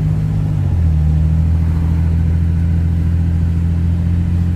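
Car engine and road drone heard from inside an open-top convertible while driving: a steady low hum whose note changes about a second in, then holds.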